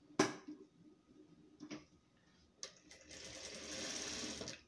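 Industrial lockstitch sewing machine: a sharp click at the start and a few lighter clicks, then the machine runs steadily for about a second and a half, stitching, and stops abruptly near the end.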